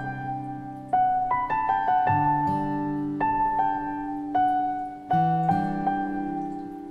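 Slow, gentle piano music: single notes and soft chords struck about once a second and left to ring and fade.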